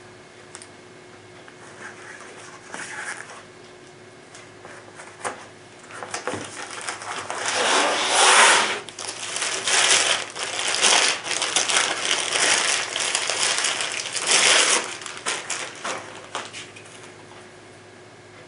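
Clear plastic bag crinkling and rustling as a pistol is unwrapped from it by hand, in irregular bursts, loudest about halfway through and again near the end.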